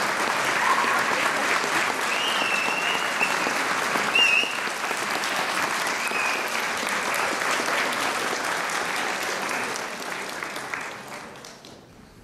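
Audience applauding after a dance, with a few short cheers early on; the clapping dies away near the end.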